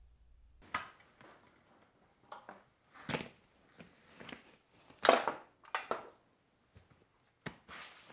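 Hard plastic clicks and clacks of a Kolpin semi-rigid ATV front bag being unlatched and opened: its clips snapping free and the lid and compression collar worked loose, a series of sharp snaps with the loudest about five seconds in.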